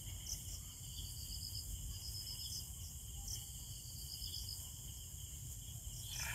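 Crickets chirping faintly at night: short pulsed trills that come again every second or so over a steady high-pitched insect drone.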